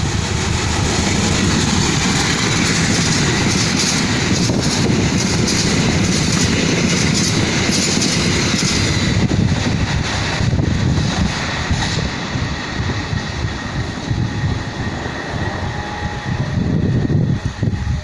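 Passenger train passing close by at speed: a loud rushing noise with rapid clatter of wheels over the rail joints. About nine seconds in the higher hiss fades away, leaving a lower rumble as the train goes.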